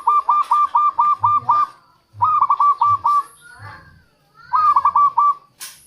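Zebra dove calling: three runs of quick, evenly repeated notes, about eight a second, with short pauses between them. A sharp click comes near the end.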